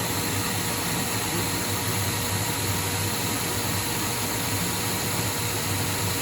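ProtoTrak CNC lathe running steadily through a rough-turning pass on a 4140 steel shaft, with the hiss of an air-mist coolant sprayer over the spindle's hum.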